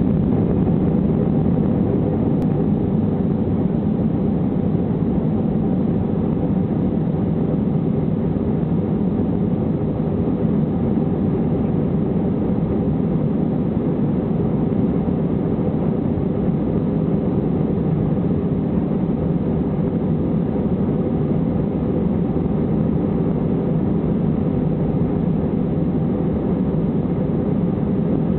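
Steady noise inside an Airbus airliner's cabin during the takeoff roll: jet engines at takeoff thrust and the runway rumble of the undercarriage.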